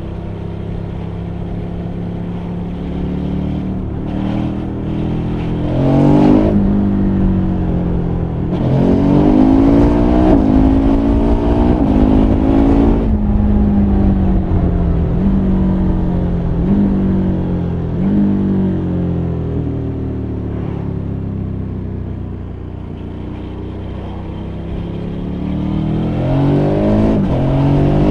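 KTM 1290 Super Adventure R's 1301 cc V-twin pulling hard through the gears, its pitch climbing and dropping sharply at each quickshifted upshift. It then slows with a series of short blipped downshifts and picks up speed again near the end.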